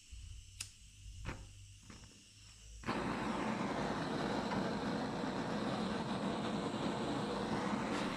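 A lighter clicks three times at the nozzle of a gas blowtorch on a blue gas cartridge; about three seconds in the gas catches and the torch burns with a loud, steady hiss.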